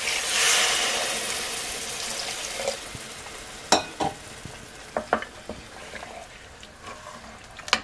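Hot water poured into an aluminium pressure cooker of hot, oily mutton masala, sizzling and hissing as it hits the pan. The hiss is loudest in the first second or so and then dies away. A wooden spatula then stirs the curry, knocking against the side of the pot several times.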